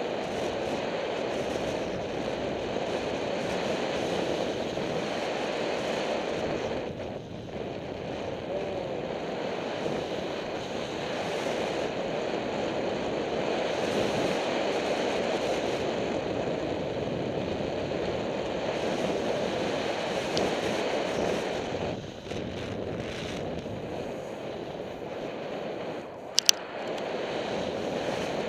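Steady rushing noise of a fast run down a ski slope: wind over the camera microphone mixed with the hiss of sliding on snow. It eases off briefly twice, and there is one sharp click near the end.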